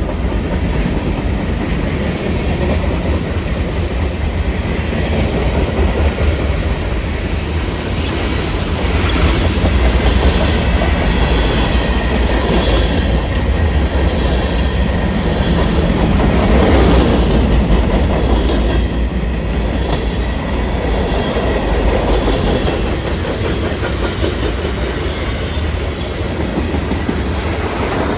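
A train rolling past at close range, a steady heavy rumble with wheels clicking over the rail joints, swelling and easing as the cars go by.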